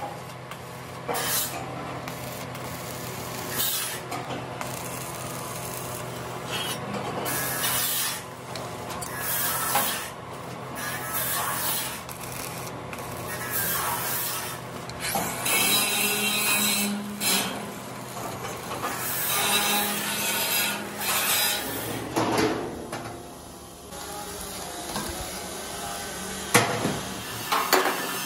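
Stick arc welding on a steel frame: the arc's irregular crackling hiss comes and goes in stretches, between clinks and scrapes of steel bar pieces being handled and set in place. A low steady hum runs underneath and stops about three-quarters of the way through.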